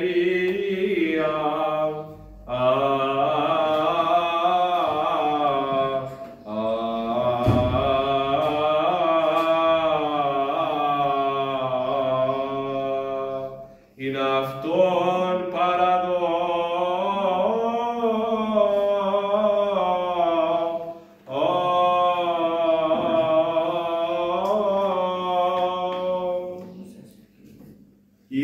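A solo male voice chanting the closing words of an Orthodox Gospel reading in Greek, drawn out in a long, ornate Byzantine melisma. The chant comes in five long phrases with short breaths between them, the last dying away near the end.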